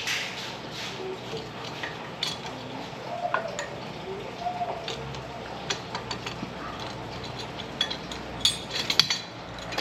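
Light metallic clinks and taps of a brake caliper, pads and hand tools being handled while the caliper piston is pushed back by hand, with a quick cluster of clinks near the end.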